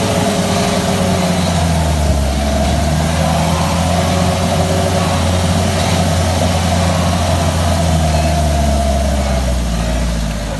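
Old jeep's engine running steadily under way on a rough dirt track, heard from inside the cab; the engine note drops a little about a second and a half in, then holds steady.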